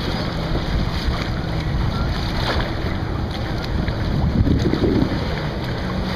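Steady wind rumble on the microphone over open sea water and small waves around a kayak.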